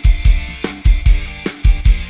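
Band music playing back from a SONAR project, with an Addictive Drums 2 virtual drum kit mixed to sound like a live band: a heavy kick drum on a steady beat under cymbals, bass and guitar.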